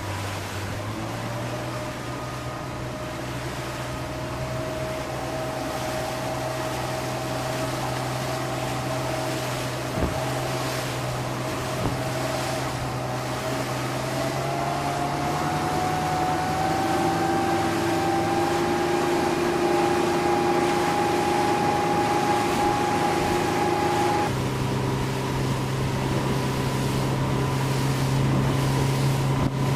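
Honda four-stroke outboard motor driving an aluminum boat at speed, with water and wind rushing past. Its pitch climbs gradually past the middle and changes abruptly near the end.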